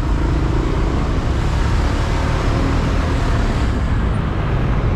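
Motorcycle riding through heavy city traffic: steady engine and road noise with a low rumble, amid the sound of surrounding cars and trucks.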